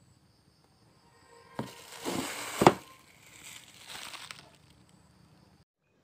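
Plastic packaging crinkling and rustling as it is handled, with a few sharp clicks and snaps, the loudest about two and a half seconds in. It dies down after about four and a half seconds and cuts off suddenly near the end.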